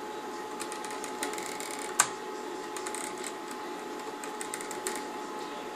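Light clicks and scrapes of small plastic parts as the fuel gauge needle is twisted and lifted off a Mercedes W208 instrument cluster, with one sharp click about two seconds in. A steady faint hum runs underneath.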